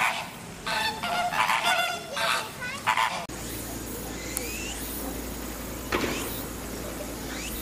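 A flock of flamingos honking: a run of short, goose-like calls one after another. About three seconds in they cut off abruptly, leaving a steady background hum with a few short rising chirps.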